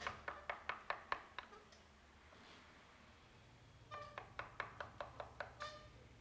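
Mallet striking a carving chisel into a wooden panel in quick, even taps, about five a second, with a pause of about two seconds in the middle. A brief ringing tone sounds with a couple of the later strokes.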